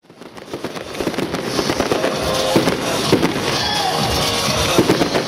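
Fireworks display: a dense, continuous run of bangs and crackles from bursting shells, fading in over the first second, with music alongside.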